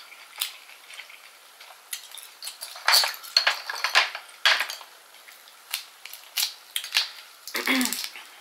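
Cooked shrimp shell being peeled apart by hand, cracking and crackling in a run of sharp irregular clicks, loudest in a cluster about halfway through.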